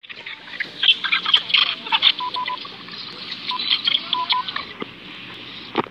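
Choppy, garbled meme-edit sound effects, a rapid jumble of clicks and blips with short beeps like telephone dialing tones, several in a row about two seconds in and again near four seconds.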